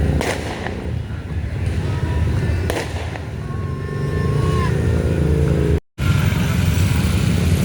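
Low, steady rumble of bus engines in a busy street, broken by two sharp firecracker bangs: one right at the start, the second about two and a half seconds later. The audio drops out for an instant near the end.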